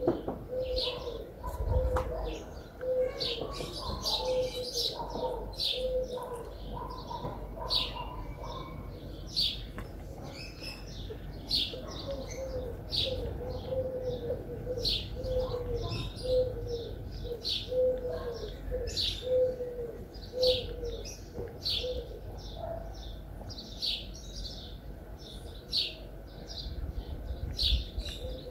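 Birds calling: small birds giving short high chirps about twice a second, over a low cooing note repeated evenly in two long runs, like a dove.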